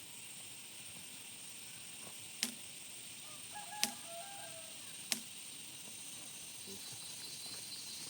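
Three sharp clicks or knocks, roughly a second and a half apart, over a quiet background with a steady high hiss. No chainsaw is running.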